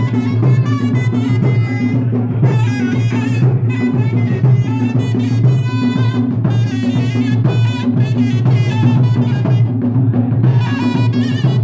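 Live folk dance music: a loud, reedy wind instrument plays a winding melody over large barrel drums beating a steady rhythm.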